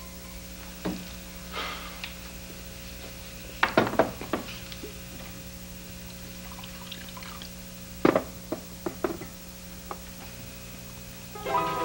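Glassware being handled: a short pour of a drink and a series of clinks and knocks as a decanter and glass are picked up and set down on a table, coming in two clusters, over a faint steady hum.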